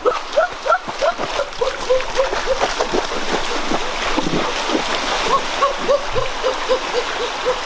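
Rushing water of a shallow, fast-flowing stream, with a rapid series of short chirping calls repeating about three times a second.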